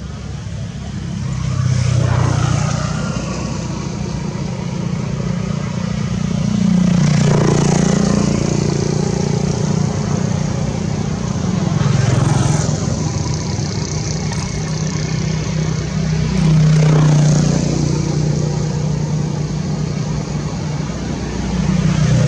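Motor vehicles passing on a nearby road: a steady low engine hum that swells up and fades about every five seconds as each one goes by.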